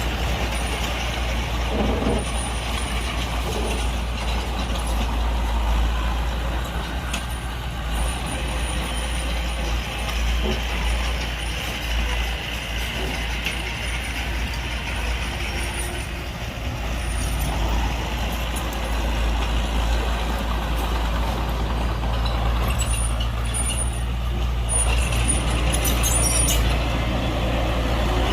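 Heavy diesel earthmoving machinery running steadily: a deep engine rumble under a constant noisy haze, with short high squeaks now and then. It grows a little louder in the last few seconds.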